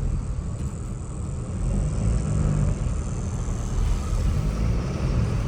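Chevrolet S10 pickup driving at low speed, heard from inside the cab: a steady low rumble of engine and tyres.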